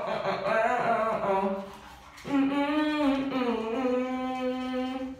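A man humming a tune: a wavering phrase, a short break about two seconds in, then one long held note that sinks slightly in pitch.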